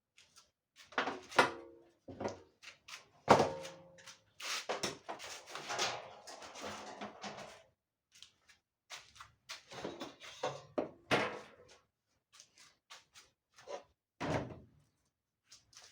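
Irregular knocks, clunks and rustling of parts and tools being handled during repair work on a tumble dryer, with the sharpest knocks about a second in, a few seconds in and near the middle.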